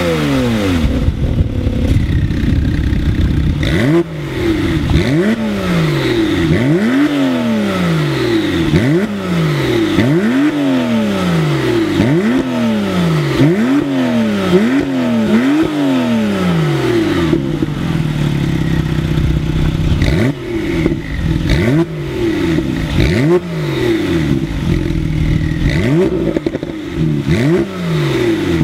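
2016 Porsche 911 Carrera S (991.2) 3.0-litre twin-turbo flat-six through its sport exhaust, revved with the car standing still. The engine is blipped over and over, about one rev a second, each rising and falling in pitch. It holds a steady raised rev for a few seconds past the middle, then the blips resume.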